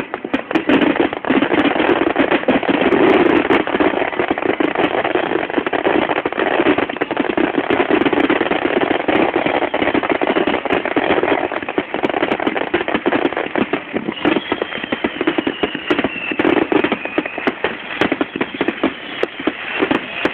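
Aerial fireworks shells bursting in a rapid barrage: a dense, unbroken run of bangs and crackle. About two-thirds of the way through, a high whistle falls slowly in pitch over a few seconds.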